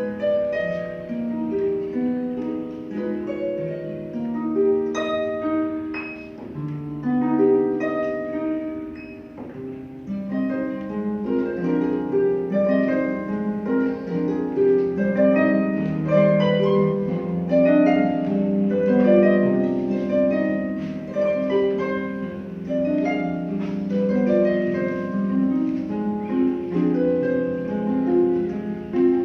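Pedal harp played solo: flowing plucked notes and chords ringing over one another, thinning to a quieter passage about a third of the way in before filling out again.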